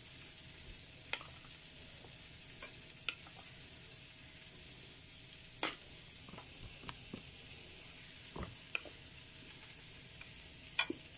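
Serving spoon tapping and clicking a handful of times against a ceramic plate as tossed vegetables are spooned onto it, over a steady faint high hiss. One tap about halfway through is the loudest, and two come close together near the end.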